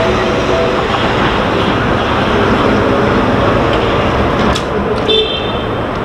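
Japanese level-crossing alarm ringing in evenly repeated strokes for about the first second, then stopping, over steady urban traffic noise. There is a sharp click about four and a half seconds in, then a brief high-pitched toot.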